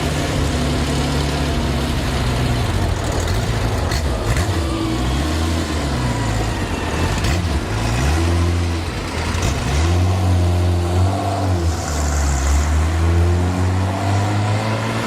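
A supercar engine revving up and down several times, with a few sharp pops in between.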